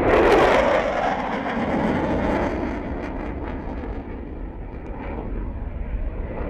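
Fighter jet flying past, its engine roar loudest about half a second in and then fading to a steady distant rumble as it moves away.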